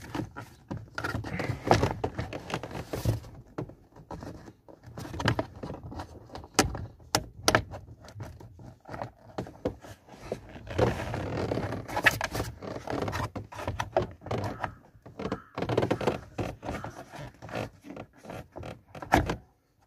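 Honda Civic lower steering-column plastic shroud being tugged and worked loose by hand: repeated knocks, clicks and scrapes of hard plastic as it flexes on its clip pins. It stays stuck, held by a screw that is still in place.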